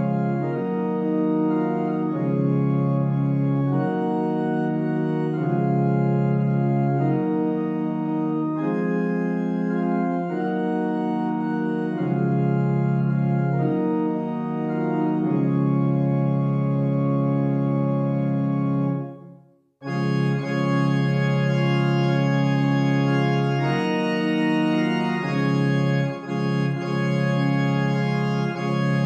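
GrandOrgue virtual pipe organ sample set, played manuals-only without pedals, sounding slow sustained chords of a hymn tune. About nineteen seconds in the sound breaks off for a moment, then resumes with a brighter registration.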